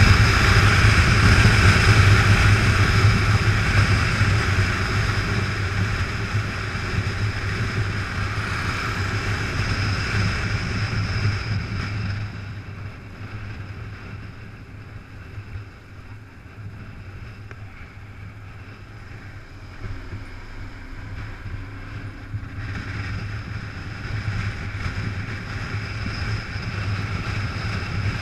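Motorcycle at road speed: wind rushing over the camera microphone over the engine's low steady hum. The wind noise drops away about twelve seconds in as the bike slows, and builds again in the last few seconds as it speeds up.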